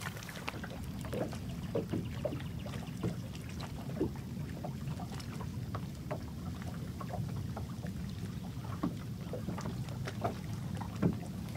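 Boat ambience on open water: a steady low wind rumble, with faint small slaps and ticks of water against the hull scattered throughout.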